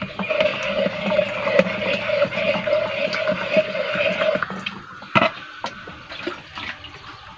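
Liquid sloshing and splashing as a plastic mug scoops in a bucket of strained, fermented organic fertilizer slurry. A steady hum underneath stops about four seconds in, and there is a single sharp knock about a second later.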